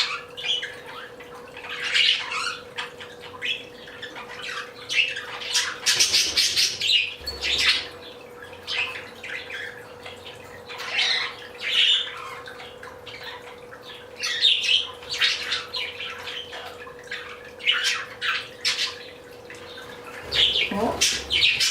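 A flock of budgerigars chirping, squawking and warbling, with many short high calls overlapping and coming in bursts every second or two.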